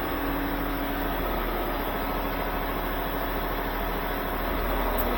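Car wash plant room machinery running: the wash equipment's pumps, the loudest a big pump on an Oasis XP wash, make a steady hum and hiss that doesn't change. The room is described as really noisy.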